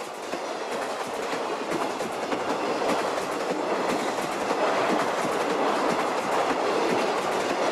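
Passenger train speeding past close by: a dense rushing rumble with a rapid, irregular clatter of wheels over the rails, growing a little louder.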